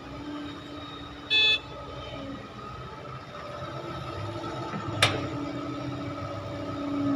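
Heavy machinery engine running steadily, with a short horn toot about a second and a half in and a single sharp clank about five seconds in.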